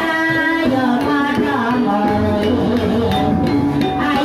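Ebeg (kuda lumping) accompaniment music: a singer's melody over hand drums and pitched instruments, playing steadily.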